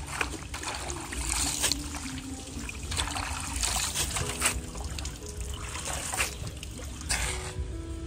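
Hands swishing and squeezing leafy greens in a metal basin of water, with irregular splashing and trickling.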